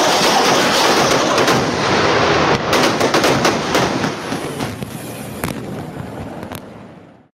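Armoured vehicles rumbling, then a rapid string of sharp cracks and bangs from a battlefield pyrotechnic display over the thinning rumble, the whole fading out near the end.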